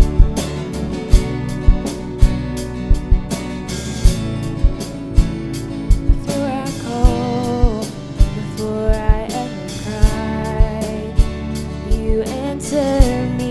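A live worship band plays a song with a steady kick-drum beat and guitar. A woman's singing voice comes in about six seconds in.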